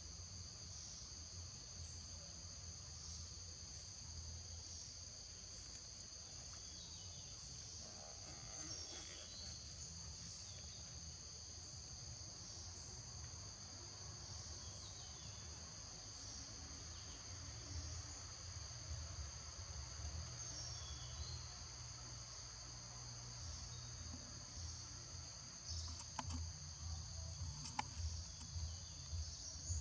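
Insects chorusing in the forest: a steady, high-pitched drone in two close pitches that never lets up. A low rumble runs underneath, and a few short clicks come near the end.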